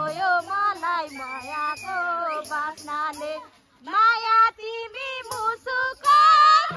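A high female voice singing a melodic song over music with a faint, regular beat.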